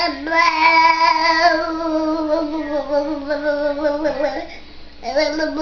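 A voice singing one long, slightly wavering note for about four seconds, then starting again about five seconds in with a rapid, pulsing warble.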